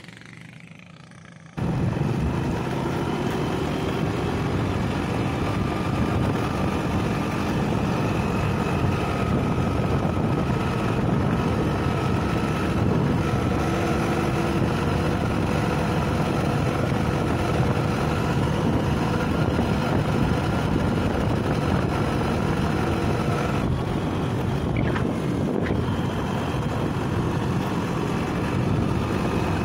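Motor vehicle engine running steadily, heard from on board while driving, with wind noise on the microphone. It starts suddenly about a second and a half in, after a quiet moment.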